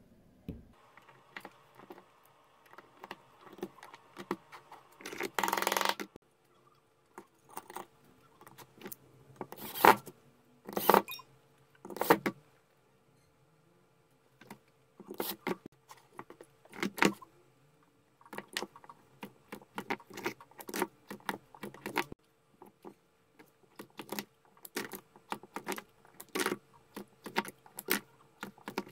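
Battery cells and metal parts clinking and clicking as they are handled and fitted into a battery pack. The taps come irregularly, with a longer rustling scrape about five seconds in, over a faint steady hum.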